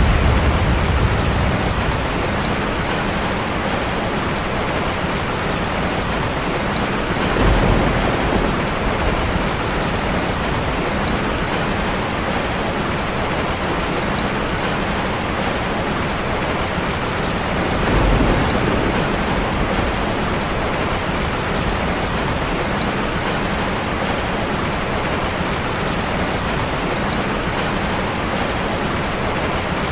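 Steady heavy rain. A low rumble swells up about seven seconds in and again about eighteen seconds in.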